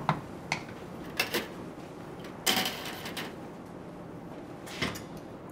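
Kitchen utensils knocking and scraping against a wok and dishes: a few short knocks, with one longer scrape about two and a half seconds in.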